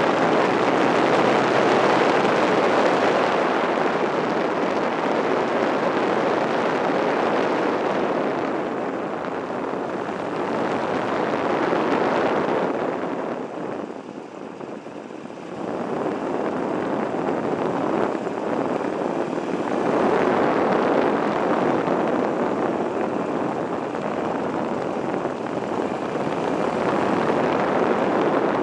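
Buell XB9SX motorcycle's air-cooled V-twin running on the road, mixed with wind rush, heard from a handlebar-mounted camera. The sound dips for a couple of seconds about halfway through, then picks up again.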